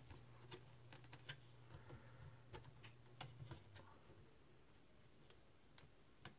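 Very quiet; faint scattered clicks and taps of fingers and a screwdriver working at the plastic case of a Poqet PC, mostly in the first four seconds and twice more near the end.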